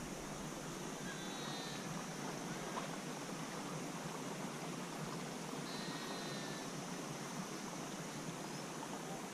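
Steady rushing hiss of open-air ambience, with two faint, distant animal calls, one about a second and a half in and another about six seconds in.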